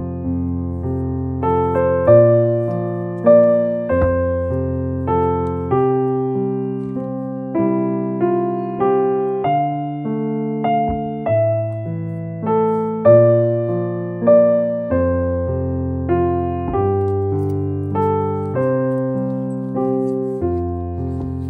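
Background piano music: chords and single notes struck about once a second, each fading before the next.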